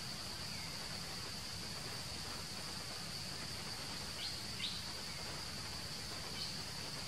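Steady, high-pitched insect drone, with a few short, faint chirps about four and a half seconds in and again near the end.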